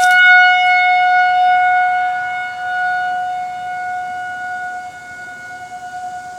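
Outdoor tornado warning siren sounding a single steady high tone, getting gradually quieter through the second half.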